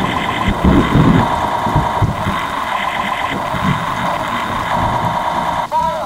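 Electronic sound effect from a battery-powered knockoff Gobots laser toy gun: a steady, buzzy, warbling electronic tone over an irregular low pulsing rumble. Near the end a sweeping laser-like chirp starts.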